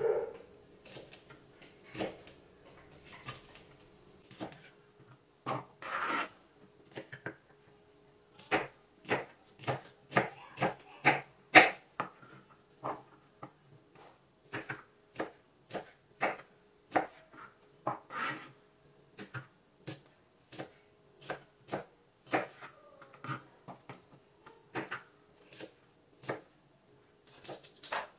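Knife slicing okra on a plastic cutting board: a run of sharp single taps of the blade hitting the board, about one or two a second, coming closer together and louder midway through.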